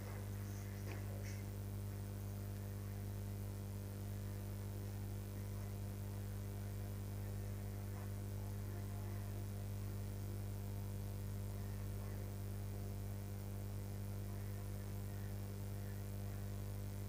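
Steady electrical mains hum: an even low drone with a buzzy row of overtones above it, unchanging throughout.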